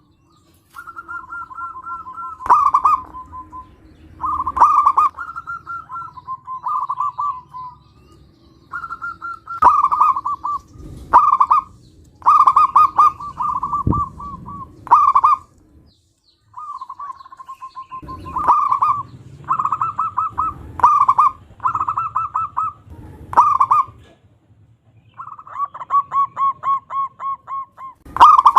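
Zebra dove (perkutut) cooing: repeated phrases of quick, rolling notes at a steady pitch, each ending in louder accented notes, with short pauses between phrases.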